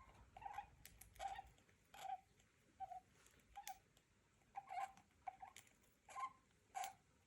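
Small pet parrot giving short, creaky squeaks, about ten of them, one every half second to second.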